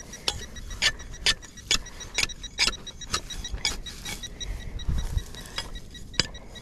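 Serrated metal digging tool chopping and scraping into grassy soil, a series of short sharp strokes about two a second.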